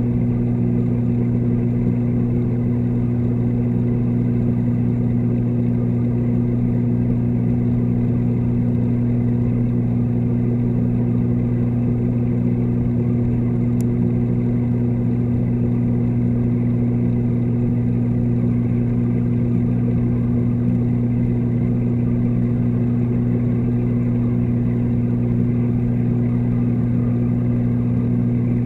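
Steady electrical hum of reef-tank pumps picked up through the water by a submerged camera: a loud, unchanging low drone with a couple of fixed tones.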